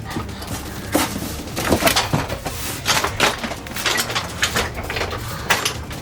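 Repeated knocks, clatters and rustles of toys and household objects being moved and rummaged through.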